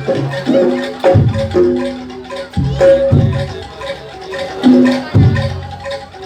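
Gamelan ensemble playing jaranan accompaniment: ringing struck metal tones over deep low strokes that recur every second or so.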